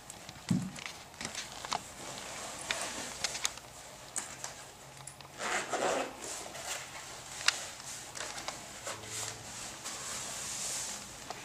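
Black leather thigh-high stiletto boots being handled and pulled on: leather rubbing and rustling, with scattered small clicks and taps and a soft thump about half a second in. A longer rustle comes about halfway through as the boot shaft is drawn up the leg.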